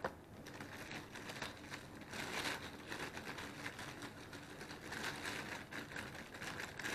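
Packaging being handled while a scope mount is unpacked: irregular soft rustling and crinkling.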